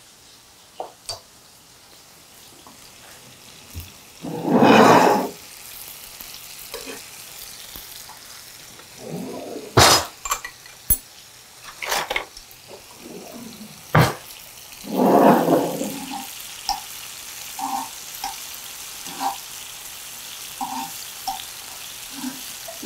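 Kitchen work sounds: lemon slices sizzling faintly in a frying pan on a gas hob, two short bursts of water running from the sink tap, and a few sharp clinks and knocks of utensils, with tongs turning the slices in the pan near the end.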